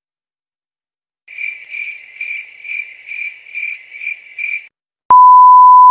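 Cricket-chirp sound effect: about eight evenly spaced high chirps over some three seconds, the classic 'crickets' gag. It is followed near the end by a loud, steady censor-style beep tone lasting about a second, which cuts off sharply.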